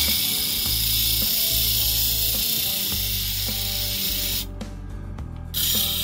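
Kitchen knife blade ground against the abrasive wheel of a homemade bench grinder powered by a washing-machine motor: a loud hissing scrape for about four and a half seconds that stops, then starts again briefly near the end. Background music plays underneath.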